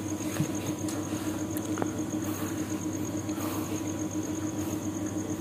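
Steady background hum with a faint high-pitched pulsing tone over a low hiss; no distinct event.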